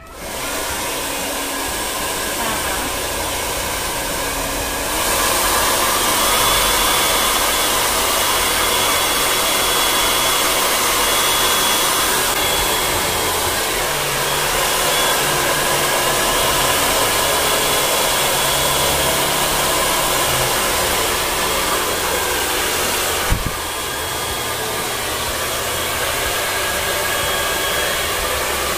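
Bopai 4,000-watt handheld hair dryer switched on and blowing steadily, stepping up louder about five seconds in. A click comes about two-thirds of the way through, after which it runs slightly quieter, as its hot and cold settings are tried out.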